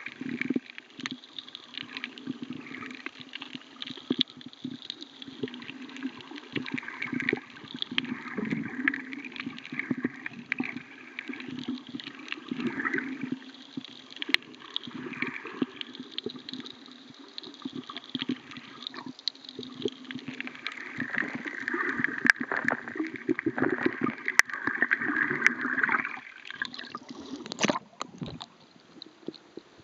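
Underwater water noise picked up by a camera in a waterproof housing: gurgling and sloshing with scattered clicks. Near the end there is a rush of bubbles, and then the sound drops away sharply.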